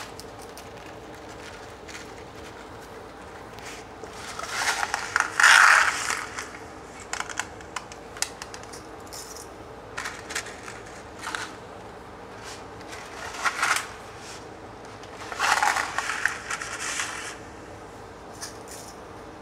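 A cardboard box of dry spaghetti being opened and handled, and dry spaghetti rattling and clattering as it is dropped into a pot of boiling water. It comes in several bursts, the loudest about five seconds in.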